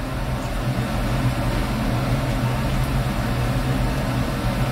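Shrimp tempura frying in a pan of hot oil: a steady sizzle, over a steady low hum.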